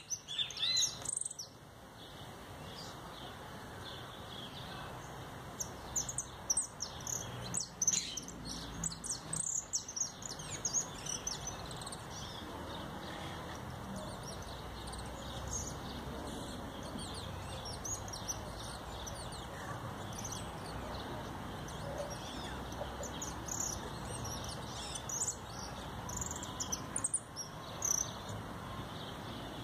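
Caged jilguero finch singing: runs of quick, high chirping song notes, busiest in the first ten seconds and again near the end, with sparser notes in between over a steady background hiss.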